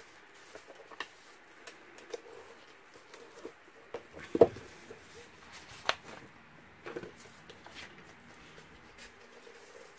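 Kraft cardstock being folded and creased by hand on a scoring board, with paper rustling and scraping and light taps and clicks throughout. A louder knock comes about four and a half seconds in, and a sharp click a moment later.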